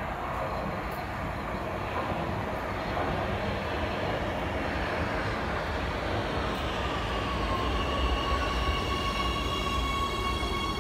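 Oslo Metro MX3000 electric train pulling into the station and braking to a stop, its wheels rumbling on the rails and growing louder as it nears. From about two-thirds of the way in, a high electric whine joins the rumble: it dips slightly in pitch, then holds steady.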